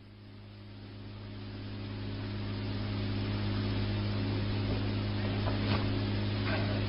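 Steady low hum with a hiss, fading in over the first two to three seconds, with faint voices in the background near the end.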